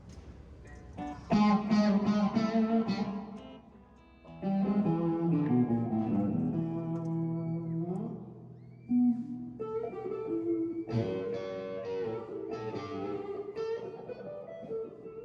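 Guitar chords strummed and left ringing, in three passages with short pauses between them. The middle passage has a walking bass line stepping downward.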